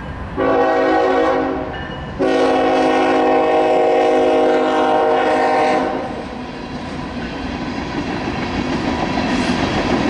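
Air horn on a Union Pacific GE Evolution-series freight locomotive sounding a short blast, then a long one of about three and a half seconds, each a chord of several tones. These are the closing short and long of the grade-crossing signal. After the horn, the rumble of the approaching freight train builds steadily.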